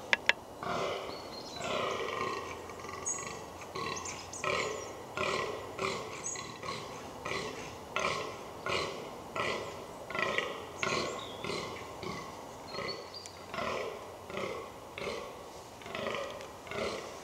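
A fallow deer buck giving its rutting groan: a long run of short, hoarse belching calls repeated steadily about once every 0.7 seconds. Two sharp clicks come just at the start.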